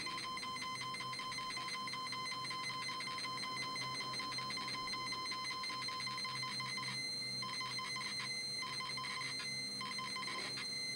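ZX Spectrum cassette data loading signal: a steady, high-pitched electronic buzz as the game's loading screen data comes off the tape. The upper part of the tone drops out briefly several times in the second half.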